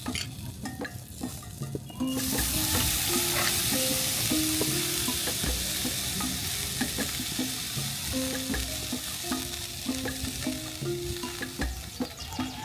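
Food frying on high heat: a loud, steady sizzle starts suddenly about two seconds in. Soft background music with a short repeating melody plays underneath.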